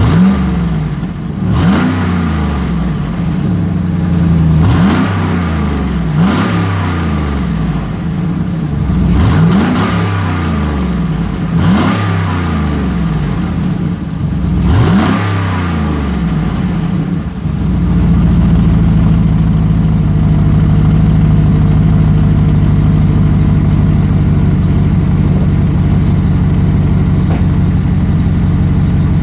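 2008 GMC Sierra Denali's 6.2L L92 V8 revved in a series of short blips, each rising and falling back, then settling into a steady idle for the last third. The exhaust has a leak just ahead of the secondary catalytic converter and the resonator deleted.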